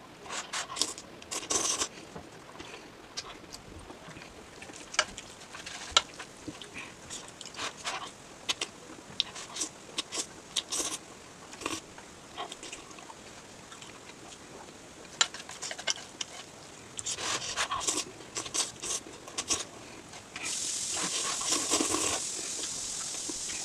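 Close-miked eating of noodles: scattered wet smacking clicks and crackles of chewing, then a louder steady hissing sound of about three seconds near the end.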